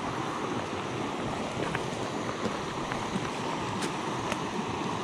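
Small rocky mountain stream running over a riffle: a steady rush of water, with a few faint ticks.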